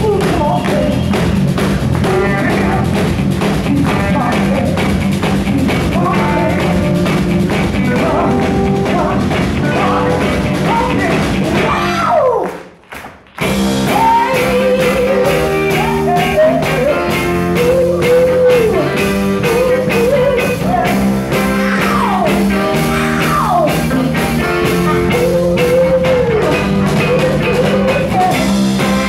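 Live soul and rhythm-and-blues band playing: a woman singing lead over electric guitar, saxophones and drum kit. About halfway through, the band stops dead for about a second, then comes back in.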